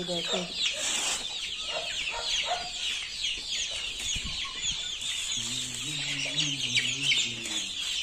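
A flock of chickens clucking and chirping: a dense, continuous chorus of short high calls.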